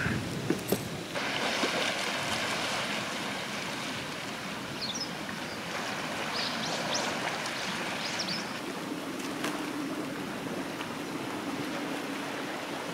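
Steady rushing outdoor noise, with a few footsteps on stone paving in the first second and several short, high chirps in the middle.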